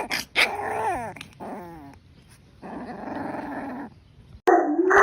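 A dog growling in two long bouts, with short falling whines between them. Near the end a sharp knock and a louder, rising drawn-out call cut in.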